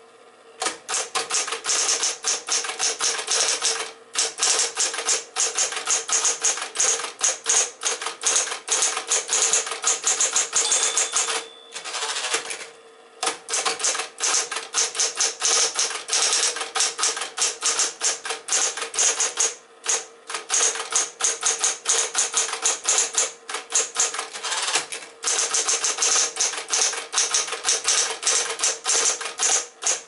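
Sears Electric 10 electric portable typewriter (a Smith-Corona build) typing fast: rapid type-bar strikes, several a second, over the steady hum of its running motor, with a few short pauses between bursts and a brief ring partway through.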